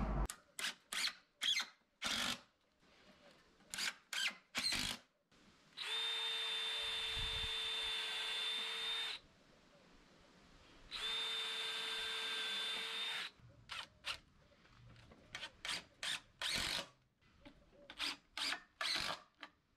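Cordless drill with a thin bit drilling pilot holes in timber boards to keep the wood from splitting. Two steady runs of about three seconds each hold an even pitch, and many short trigger bursts come before and after them.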